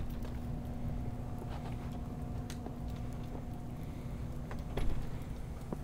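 Footsteps crunching through snow, irregular soft crunches over a steady low rumble, with a louder bump about five seconds in.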